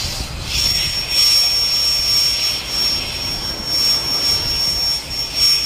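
Machine noise: a steady high-pitched whine that starts about half a second in, over a rushing hiss and a low rumble, like a running turbine or jet engine.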